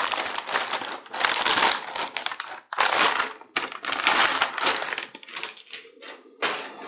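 Anti-static plastic bag crinkling and rustling in irregular bursts as a graphics card is worked out of it, thinning out near the end.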